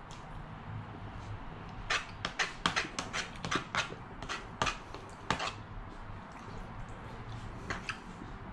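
A man eating ramen noodles noisily, chewing and slurping with wet mouth smacks: a quick run of them from about two to five and a half seconds in and a couple more near the end.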